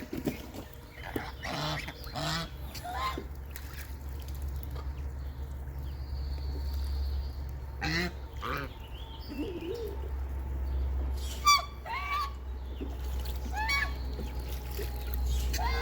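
Birds calling in short calls at irregular intervals, several sounding together at times, over a steady low hum.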